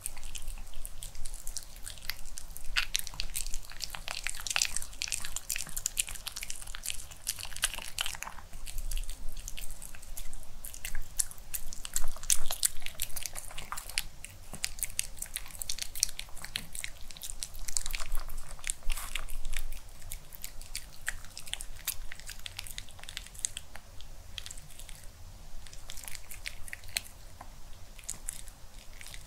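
A Pomeranian chewing and crunching a crispy air-fried chicken cheese cutlet, with a rapid run of sharp crackling crunches. The crunching is densest over the first several seconds and again around the middle, and thins out near the end.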